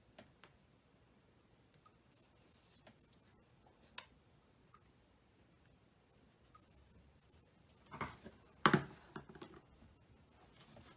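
Faint clicks and scratches of a sharp metal pick prying at a tiny plastic JST SH connector, lifting its locking tabs to free the crimped pins. About eight seconds in there is a louder burst of clicking and rustling as the wire bundle is handled.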